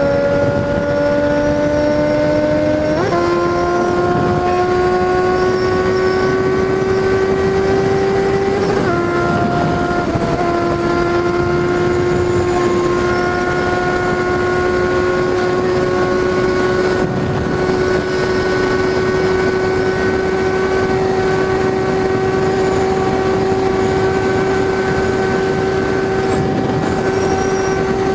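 Suzuki Bandit 650 inline-four motorcycle engine running at road speed under steady wind rush. Its note climbs slowly, jumps up sharply about three seconds in, dips briefly about nine seconds in as it changes gear, then holds nearly steady.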